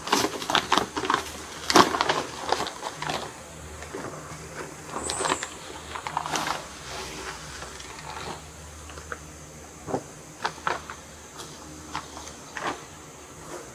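Brown kraft paper bag crinkling and rustling as it is pulled open and handled, in irregular crackles that are busiest in the first few seconds and come only now and then after.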